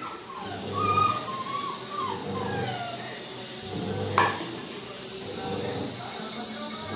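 Labrador puppy whining in short, high cries that bend up and down, begging to be fed. A sharp click about four seconds in.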